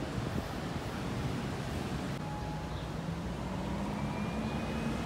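City street traffic: a steady low rumble of vehicles, with one engine's low hum rising slightly in pitch over the last couple of seconds.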